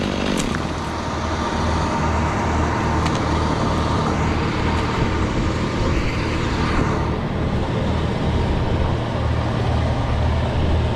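An engine running steadily: a continuous low rumble with no breaks.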